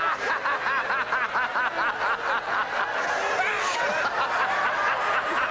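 Several congregants laughing at once in a charismatic revival meeting, the so-called holy laughter: rapid, rhythmic 'ha-ha-ha' peals from more than one voice overlapping without a break.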